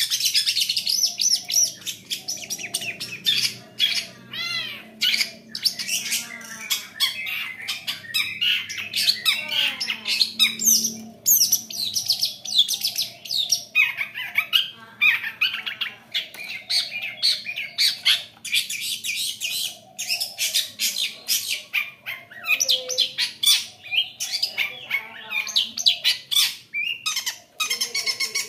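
Long-tailed shrike (cendet) singing without pause: a rapid, varied stream of high chattering notes, trills and sweeping whistles. This is the full, energetic song used as a lure to provoke a reluctant shrike into singing.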